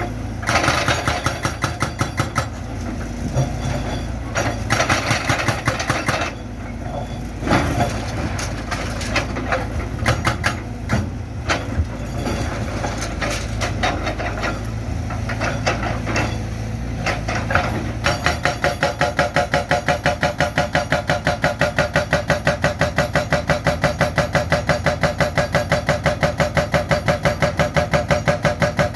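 Excavator engine running under load while concrete and steel bar are broken up, with irregular clanks and scrapes. About two-thirds of the way in, this gives way to a steady, rapid hammering of about four blows a second.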